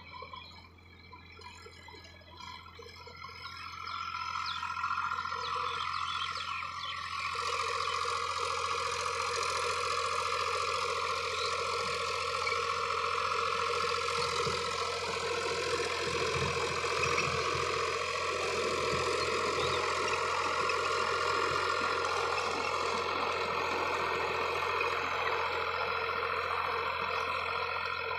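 Powertrac 439 Plus tractor's three-cylinder diesel engine working under load while driving a 66-blade rotavator through the soil. It grows louder a few seconds in, then runs steadily with a whine over the engine note.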